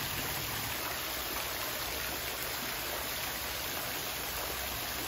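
Many thin streams of water falling from above into a fish pond, making a steady splashing hiss.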